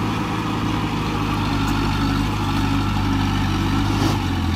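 Heavy diesel engine of an earthmoving machine running steadily, with a brief clack about four seconds in.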